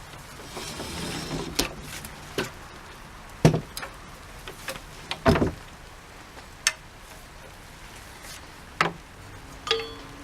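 Sharp, irregular clunks and knocks from an old Precision chainsaw being pulled over on its starter without the engine catching, about ten over the stretch.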